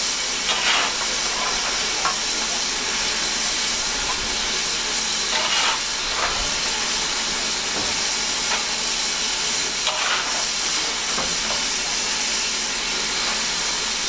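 BR Standard Class 9F steam locomotive hissing steadily as it stands in steam, with a few brief louder sounds about every five seconds.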